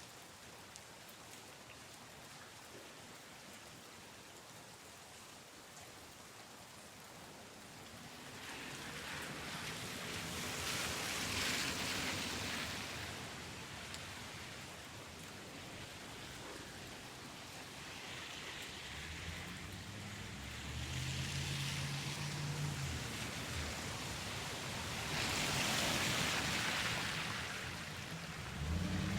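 Rain falling as a steady hiss that swells louder in slow surges after about eight seconds. A low, steady hum of several tones comes in from about two-thirds of the way through.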